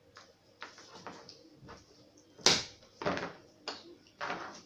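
Secateurs cutting dry twigs to length, with twigs handled on the tabletop: several sharp snaps and clicks, the loudest about halfway through.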